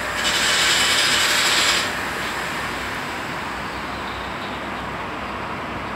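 Isuzu diesel engine running steadily, with a louder hiss from about a quarter second in lasting about a second and a half.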